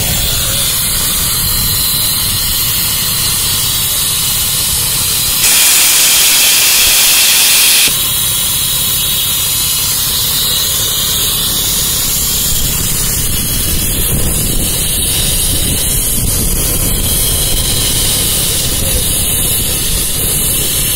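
Steam hissing from steam sawmill machinery over a steady low rumble. A louder blast of steam lasts about two seconds, roughly a quarter of the way in.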